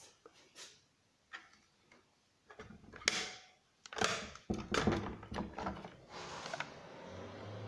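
Hard objects being handled: a series of separate knocks and clicks, with two louder scraping rustles about three and four seconds in. A low steady hum begins near the end.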